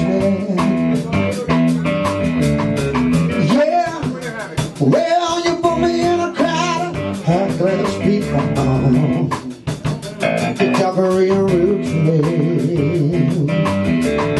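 Live rock band playing: an electric guitar on a repeating riff over bass and drums, with some singing at the microphone.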